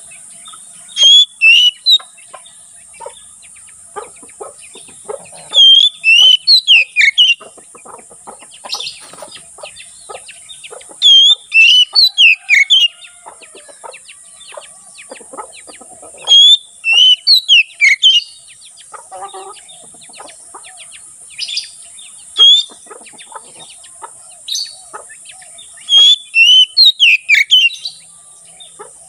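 Oriental magpie-robin (kacer) singing in full song: loud phrases of quick, varied whistled notes, each lasting a second or two and coming about every five seconds, with fainter chirps between them.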